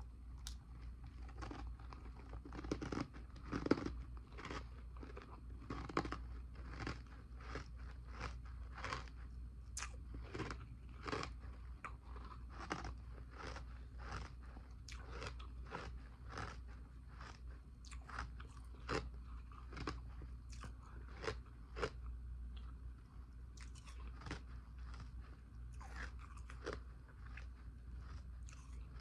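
A person biting and chewing ice dumplings: a steady run of sharp crunches, about two a second, with the loudest bites a few seconds in.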